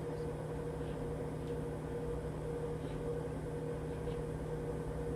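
A steady hum with a constant low tone and a second, higher tone, with a few faint soft ticks.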